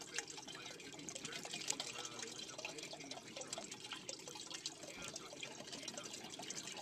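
Water splashing and dripping in a bucket lined with a mesh bubble-hash filter bag, a steady patter of small splashes and drips.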